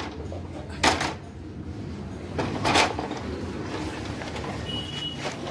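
Plastic paper cassette of a Canon iR copier being handled and slid into place: two short scraping slides, about a second in and again near three seconds, over a steady low hum.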